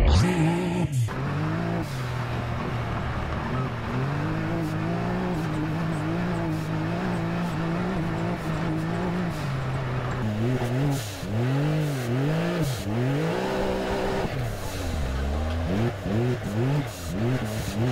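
Can-Am Maverick X3 side-by-side's three-cylinder engine, heard from inside the cab, running at a fairly steady pitch under throttle. From about ten seconds in it revs up and down repeatedly in quick swells.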